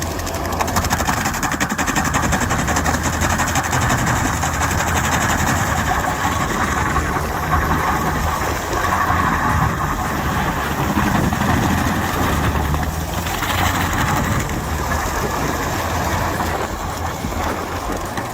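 Engine of a forestry mulching machine running steadily.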